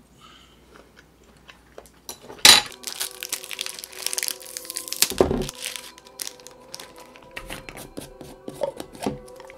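Plastic snack wrapper of crackers torn open and crinkled, with a dull thump on the table about halfway through. Scattered light clicks follow as the plastic lid of a peanut butter jar is handled and twisted near the end.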